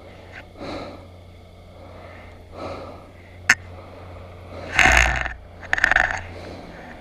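A crash-injured scooter rider breathing heavily and groaning close to the microphone, in several separate breaths, the loudest about five and six seconds in, the second of them rasping. There is a single sharp click about three and a half seconds in.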